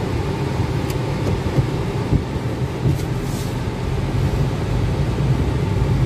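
Steady low engine and road rumble of a car driving slowly, heard from inside the cabin.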